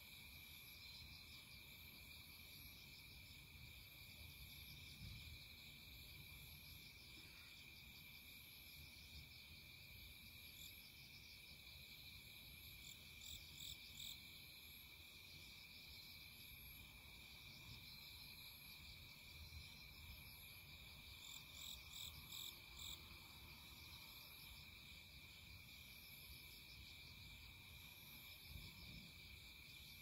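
Faint chorus of insects trilling steadily and without a break, with a couple of short series of louder, evenly spaced chirps near the middle and again about two-thirds of the way through.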